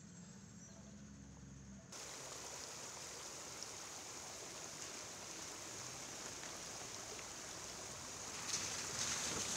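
Muddy floodwater rushing and churning over rocks: a steady, noisy rush that starts suddenly about two seconds in and grows louder near the end. Before it there is only a faint low hum.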